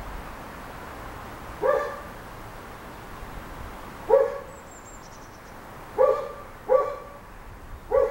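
A dog barking: five single short barks, spaced a couple of seconds apart, the last three closer together.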